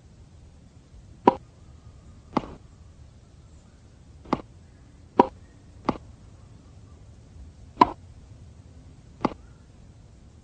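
Tennis ball being hit back and forth in a rally: seven sharp pocks, one to two seconds apart at uneven spacing.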